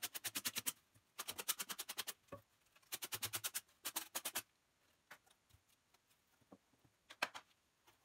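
Sandpaper scrubbing quickly back and forth on styrofoam, about ten strokes a second, in three short bursts. After that come a few light ticks and taps as the foam is handled.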